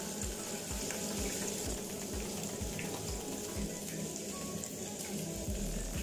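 Diced vegetables sizzling in hot oil in an aluminium pot as they are stirred with a wooden spoon, over background music with a steady beat.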